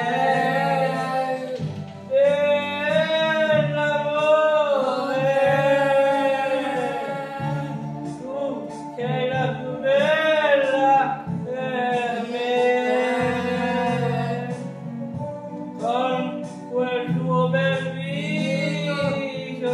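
A man singing a song over a backing track, holding long, wavering notes above steady low accompaniment.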